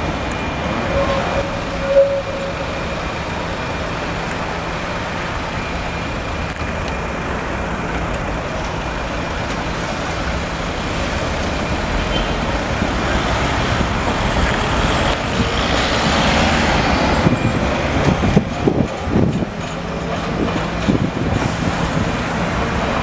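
Steady city street traffic with an articulated tram passing: its rumble swells through the middle of the stretch, followed by a quick run of knocks as it goes by. A short loud tone sounds about two seconds in.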